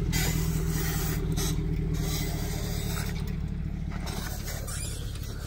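A vehicle engine idling: a steady low hum at an even pitch that slowly grows fainter.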